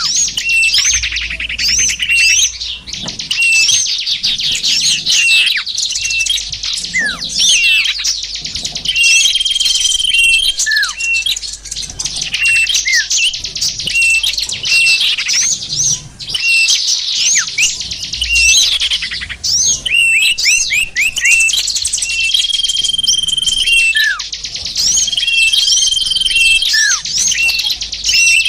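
Lure recording of small songbirds: a dense, busy chorus of high chirps and twitters, with short level whistled notes and downward-sliding calls repeating throughout.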